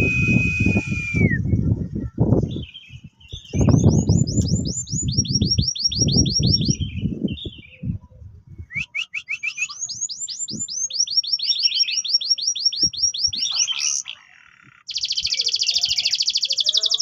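Domestic canary (orange Loper canary) singing: a long held whistle, then runs of rapid repeated notes, ending in a very fast trill. Low thumps sound under the song during the first half.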